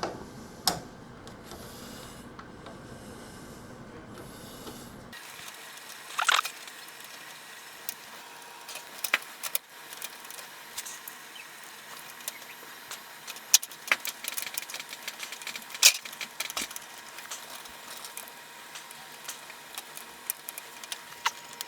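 Scattered small clicks and taps of a Phillips screwdriver and screws on metal while a CPU cooler is fastened down, over a steady low hiss. The background changes abruptly about five seconds in.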